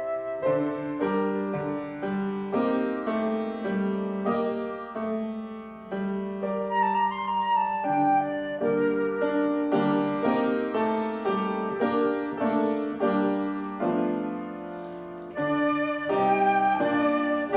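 Instrumental music: a flute playing a melody over piano accompaniment.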